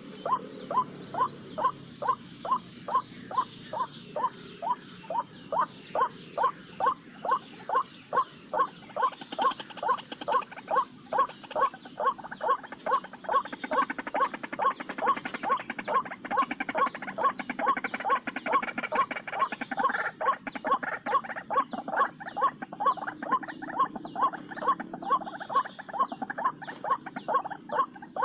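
White-breasted waterhen calls: a short note repeated evenly about two to three times a second. About nine seconds in, a second, denser layer of calls joins it.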